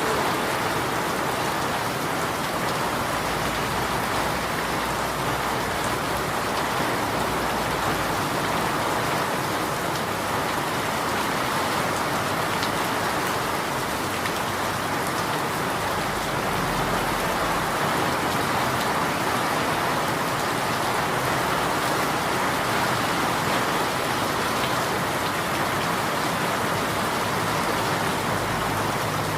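Steady rain falling, an even hiss of drops that does not change.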